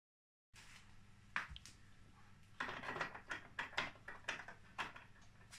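A run of small clicks and light knocks from hands handling the wiring and frame of a homemade CNC router, coming thicker from about halfway in, over a faint steady low hum.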